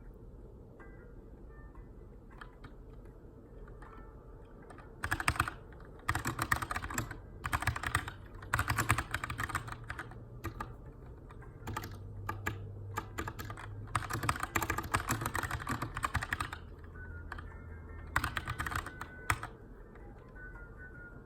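Keychron K2 mechanical keyboard with brown tactile switches in an aluminium frame being typed on: several runs of rapid keystrokes of a second or two each, separated by pauses with only a few scattered key presses.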